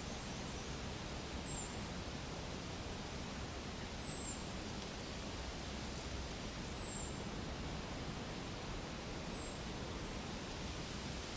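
Steady hiss of outdoor forest ambience, with a short, very high call that falls in pitch, repeated four times about every two and a half seconds.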